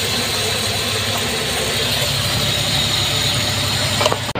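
Vegetables frying in a kadai on a gas-cylinder burner, a steady sizzle and hiss over a low steady hum.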